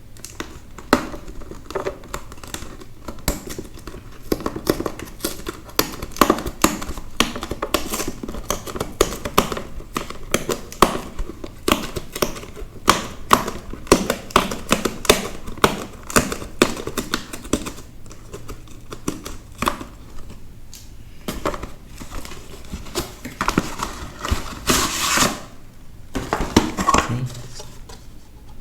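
Cardboard Magic: The Gathering scene box and its plastic wrapping being handled and opened by hand: a dense run of clicks and taps with crinkling, and a louder rustling burst near the end.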